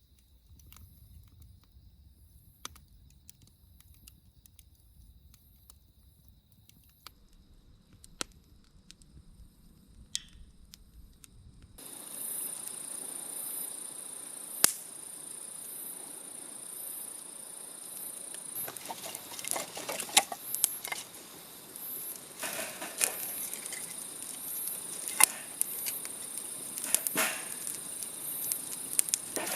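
Wood fire crackling in a camp fire pit with scattered sharp pops, over insects chirring steadily at a high pitch. The sound steps up louder about twelve seconds in, where the crackling grows denser.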